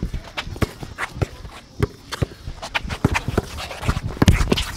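Basketball play on a court: players' running footsteps and the ball bouncing, an irregular run of thuds that is busiest and loudest about four seconds in.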